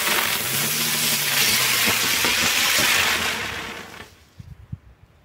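Small F1 youth firework burning on the ground and spraying sparks with a loud hiss for about three seconds. The hiss then fades out, and a few faint crackles follow near the end.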